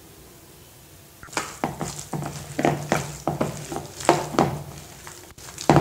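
A hand mixing and squeezing a thick pakoda mix of shredded cabbage and onion in gram-flour batter in a bowl, a run of irregular strokes starting about a second in.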